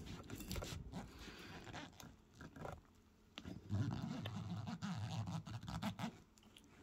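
Knife sawing through the latex rubber skin of a Stretch Armstrong toy: faint scratching and clicks at first, then a louder, rougher stretch of cutting from about three and a half seconds in, which stops shortly before the end.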